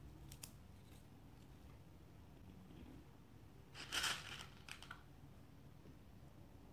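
Faint handling of beads and beadwork on nylon line, with a short rustling clatter about four seconds in and a few light clicks around it.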